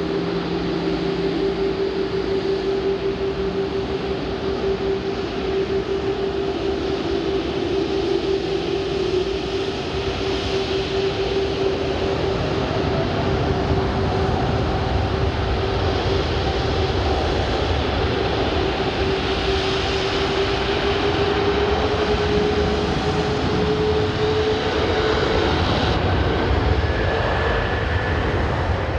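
Jet engines of four-engine airliners (a Boeing 747 and an Airbus A340) running at taxi power as the aircraft roll past close by: a steady whine over a low rumble, the whine's pitch creeping up a little later on and a second, higher whine joining partway through.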